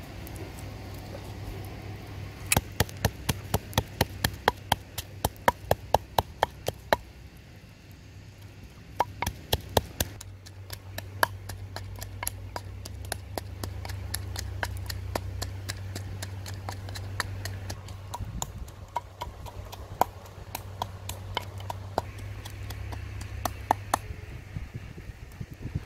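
Wooden pestle pounding chillies, garlic and salt in a wooden mortar. A fast, even run of sharp knocks, about three a second, breaks off and then turns into slower, scattered strikes.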